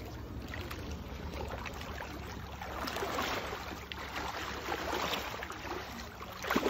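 Shallow water splashing and sloshing as a hooked tiger muskie thrashes at the surface and is grabbed by hand, with louder splashes about three, five and six and a half seconds in.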